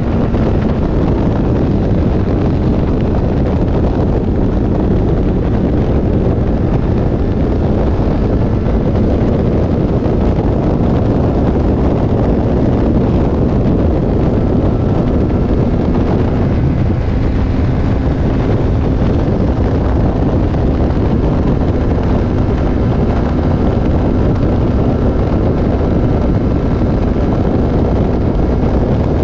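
Heavy wind rushing over the microphone of a sport motorcycle at road speed, with the engine's steady drone underneath.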